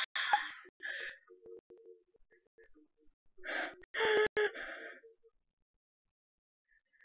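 Women gasping and groaning in disgust, in breathy wordless bursts: one at the start, then a louder one about four seconds in.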